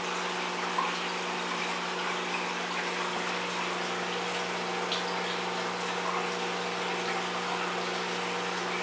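Aquarium filter and pump running: a steady rush of moving water over a low, even electric hum from the pump motor, with a couple of faint clicks.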